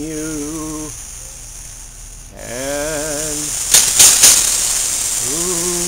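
Bull snake hissing in drawn-out breaths a couple of seconds apart, as a defensive warning. About four seconds in come three sharp clicks from the metal rake being jabbed at it.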